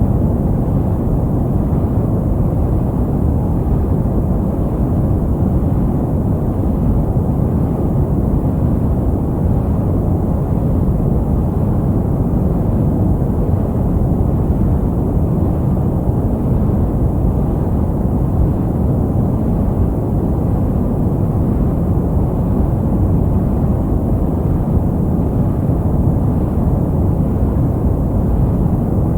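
Steady, deep noise played for baby sleep, a brown-noise variation of white noise: a constant low rumbling hiss, strongest in the bass and fading above the mid-range, with no change in level.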